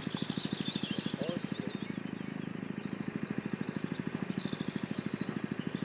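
A steady low throb of about twelve even pulses a second, like a small motor running, with birds chirping above it.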